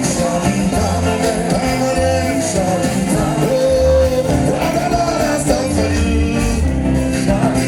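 Upbeat pop music with a singing voice over a steady bass beat.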